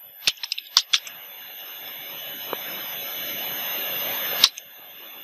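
Three quick computer keyboard keystrokes, then a steady background hiss with a faint high whine that slowly grows louder. One sharp key click about four and a half seconds in is the loudest sound.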